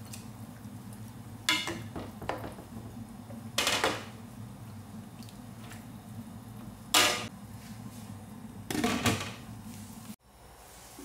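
Cookware clattering: a metal utensil knocking against a nonstick pan and a glass lid being set on it, about five short, sharp clanks, the loudest a little past the middle. A steady low hum runs underneath.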